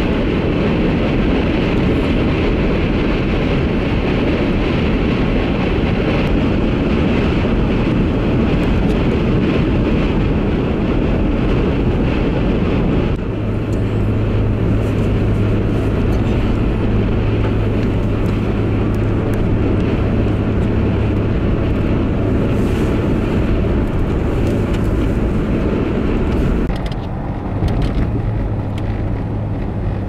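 Interior noise of a vehicle driving in high winds: a steady rush of wind and road noise. About thirteen seconds in it changes abruptly to a steady low engine and tyre drone under the wind.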